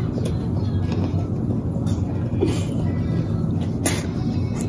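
A steady low hum, with a few short clicks, the loudest nearly four seconds in.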